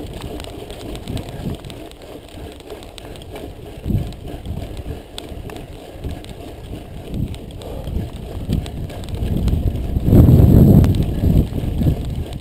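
Mountain bike rolling fast down a rough dirt track: tyres crunching over loose stones and the bike rattling with irregular knocks, with wind rumbling on the microphone. The rumble is louder for about a second, about ten seconds in.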